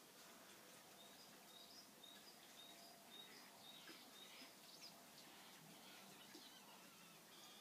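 Near silence: faint outdoor quiet with small birds chirping faintly at a high pitch, a run of short chirps in the first few seconds and a few scattered ones after.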